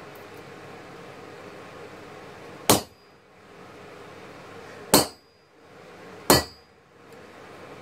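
Three sharp hammer blows on a handled steel punch set on a red-hot knife blade on an anvil: the first about two and a half seconds in, then two more just over two seconds and about a second apart. Each blow has a brief metallic ring, over a steady background hiss.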